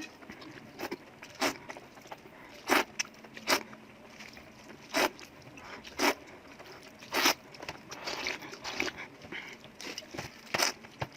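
Close-miked eating: about nine short, sharp crunches at uneven intervals as fried food is bitten and chewed, with softer chewing sounds between.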